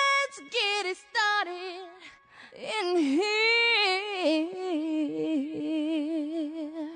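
A single high voice singing long, wavering held notes with no accompaniment, breaking off briefly around two seconds in.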